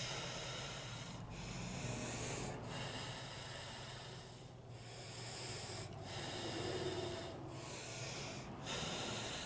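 A person blowing on freshly sprayed paint to help it dry: about seven long puffs in a row, each broken by a short pause for breath.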